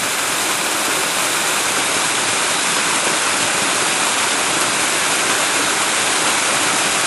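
Small waterfall spilling over a rock ledge into a shallow creek pool: a steady rush of falling, splashing water.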